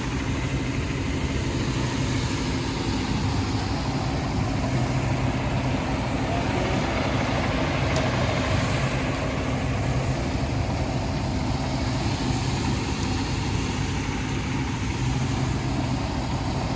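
Heavy engine idling steadily, a constant low hum with no change in speed.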